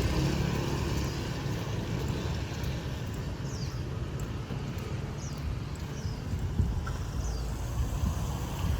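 Street traffic: a steady low rumble of passing motorbike and car engines and tyres. Faint short high chirps recur every second or so.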